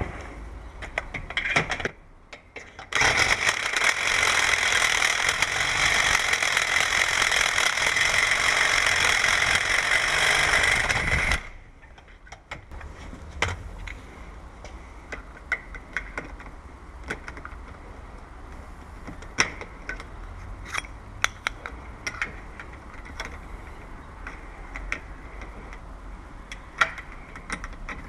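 Power drill with a speedbore spade bit running for about eight seconds from about three seconds in, boring out aluminium to widen a door's latch hole. After it stops come scattered light clicks and knocks of metal parts being handled.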